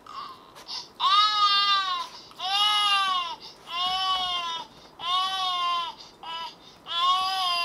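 Recording of a baby crying, played through a smartphone speaker. It is a series of about five wailing cries, each about a second long and rising then falling in pitch, plus one brief short cry near the end.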